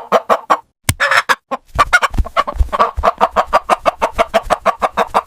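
Hen clucking in a fast run of short, repeated clucks: a few at first, then a dense, steady stream of several clucks a second.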